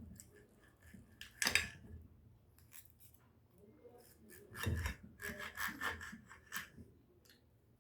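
Close-miked eating sounds: a run of crisp scraping and crunching clicks, strongest about a second and a half in and again in a quick series from about five to six and a half seconds in.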